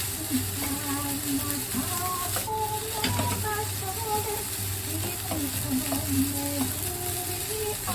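Fried rice being stir-fried in a pan, a spatula scraping and clattering against the pan over a light sizzle, with a soft melody of background music.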